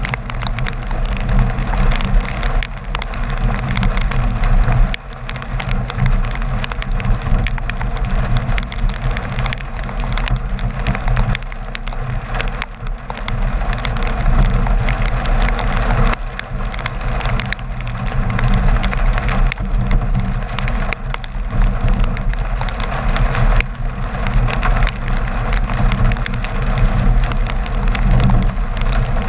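Car driving on a wet road in the rain, heard through a camera mounted outside where raindrops hit the lens. A steady low rumble runs under a constant hiss of tyres on wet pavement, with many small ticks of raindrops striking the camera.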